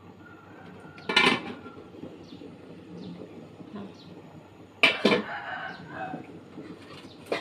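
Dishes and utensils clattering in a noodle-soup kitchen, with sharp clatters about a second in, around five seconds in, and again at the end.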